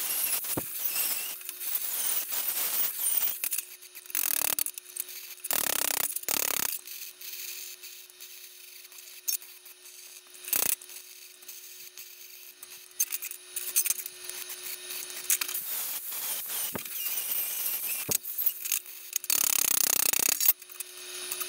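Metal fabrication sounds cut together in short bursts: an angle grinder on steel, MIG welding and hammer blows on steel pipe and plate, starting and stopping abruptly, over a steady hum.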